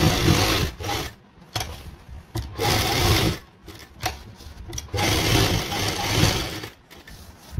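Black Gurnoor domestic sewing machine stitching fabric in short runs, each about half a second to two seconds long, with brief stops between them.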